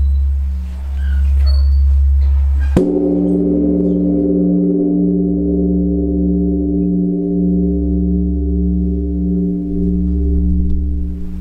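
Large Korean Buddhist temple bell, struck once by a swinging wooden log striker about three seconds in, then ringing on in several tones with a deep, wavering hum that slowly fades. Before the strike, the low hum of the previous stroke is still sounding.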